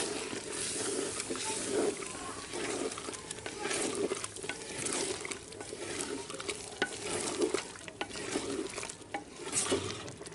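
Wooden spatula stirring and scraping chicken masala with yogurt in a clay handi pot, the mixture sizzling underneath. The strokes come irregularly, about once a second.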